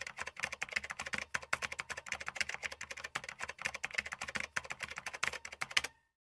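Keyboard typing sound effect: a rapid, uneven run of key clicks that cuts off abruptly just before the end.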